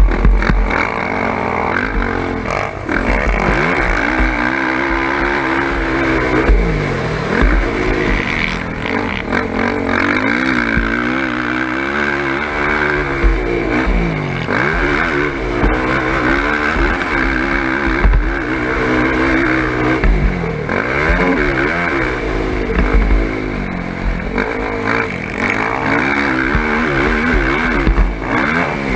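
Sport ATV engine at race pace, its revs climbing and dropping again and again through gear changes and corners. Heavy low buffeting rumbles come and go on the onboard microphone.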